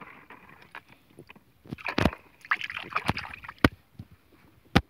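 Water sloshing and splashing as a hand stirs a bucket of rusty water full of old nails, with three sharp knocks about two, three and a half, and near five seconds in.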